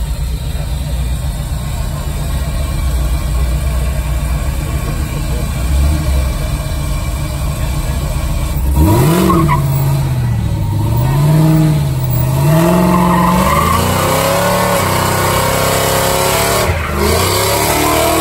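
Car engine idling with a low rumble, then about nine seconds in revving up. Its pitch rises and falls several times before holding high, with a brief dip near the end.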